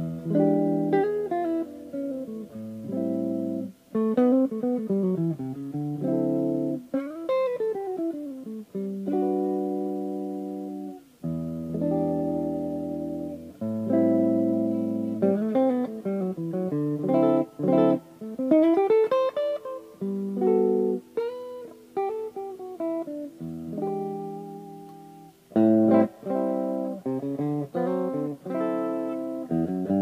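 1970s made-in-Japan Joodee JLP-55 Les Paul-style electric guitar being played: chords alternating with single-note runs, with several notes sliding up and down the neck.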